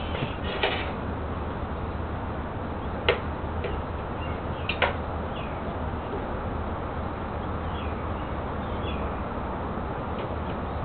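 Three sharp snaps of branches being cut, spread over the first five seconds, over steady outdoor background noise. Birds chirp faintly in the second half.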